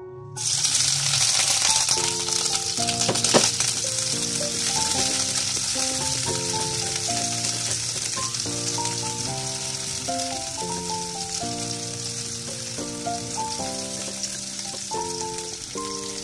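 Chopped shallots and garlic sizzling as they fry in oil in a pan, stirred with a wooden spatula. The steady sizzle starts suddenly about half a second in, with one sharp knock a few seconds later.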